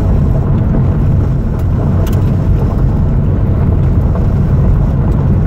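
Car driving on a gravel road: a steady low rumble of engine and tyres on gravel, with a few faint ticks.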